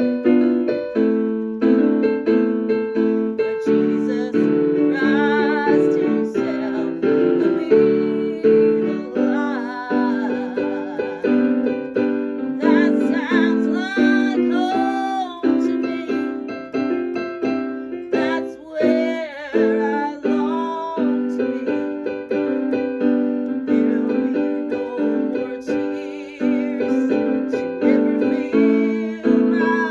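Piano music with a steady run of repeated chords. A wavering, singing-like melody line is heard above it in the middle stretch.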